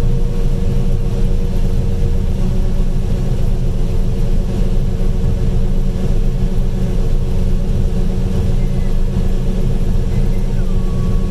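Combine harvester running steadily, heard from inside the cab, while harvesting corn and unloading grain on the go: a constant low drone with a steady hum.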